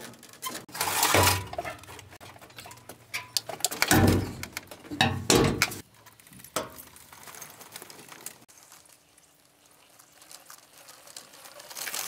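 Clattering, knocks and scrapes of metal junk and a metal-framed folding wheelchair being handled in and around a steel waste skip, loudest in the first half, then fainter scattered rattling.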